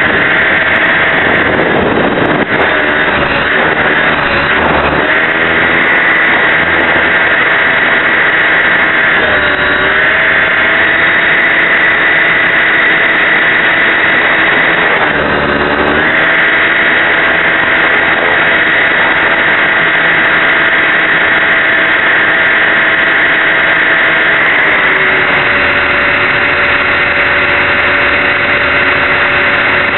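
Align T-Rex 550E electric RC helicopter in flight, heard from its onboard camera: a steady, loud whine from the electric motor and spinning rotor. The pitch dips briefly a few times and settles slightly lower near the end as the load on the rotor changes.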